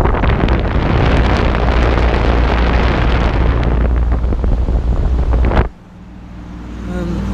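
Air blown out by a Carrier Desertmaster window air conditioner's fan buffeting the microphone, a loud steady rush. It cuts off suddenly about five and a half seconds in, and the unit's lower steady hum then rises back.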